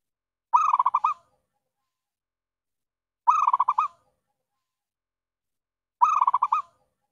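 Zebra dove (perkutut) cooing: three phrases of quick rolling notes, each about two-thirds of a second long, repeated about every 2.7 seconds, used as a lure call to draw in wild zebra doves.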